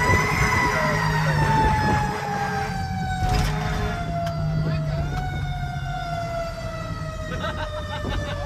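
A fire truck's Federal Q mechanical siren, heard from inside the cab, winding down with its wail falling slowly in pitch. It gets a brief lift about five seconds in, then keeps coasting down. A sharp click sounds a little over three seconds in.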